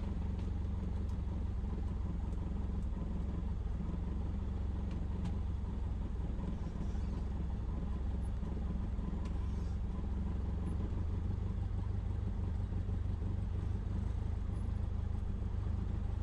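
Cessna 172's piston engine and propeller running steadily at low power on the ground, a low, even drone heard inside the cabin.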